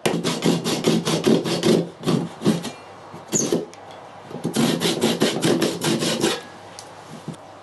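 A hand tool worked over wood in quick back-and-forth strokes, in two runs with a short break between them, fading to a low background near the end.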